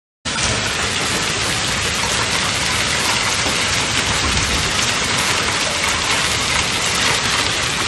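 Heavy rain mixed with hail falling on a paved street, a dense steady hiss that cuts in abruptly just after the start.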